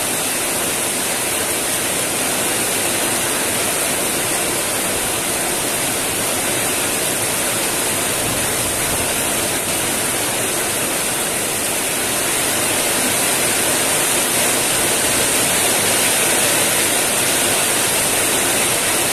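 Heavy rain falling steadily, an even hiss of a downpour that grows a little louder about two-thirds of the way through.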